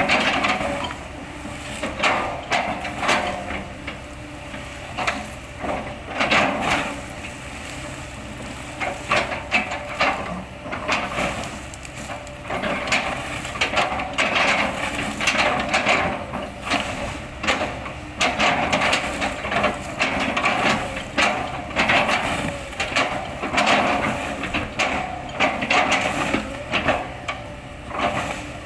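Kobelco excavator's bucket chopping and crushing an oil palm trunk into chips: repeated irregular cracking impacts, roughly one a second, over the steady running of its engine.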